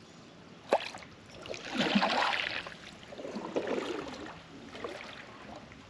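Kayak paddle strokes: water swishing off the blade twice, with a sharp knock just before the first.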